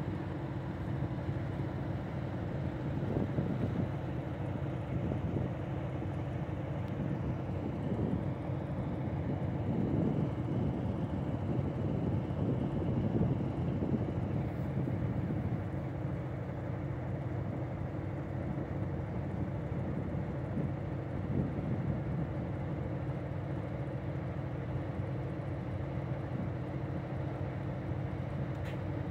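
Diesel locomotive engine idling steadily at a standstill, a low even hum.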